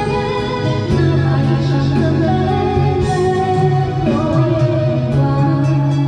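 A woman singing a Mandarin pop song into a karaoke microphone over the karaoke machine's backing track, held notes sung loud through the speakers.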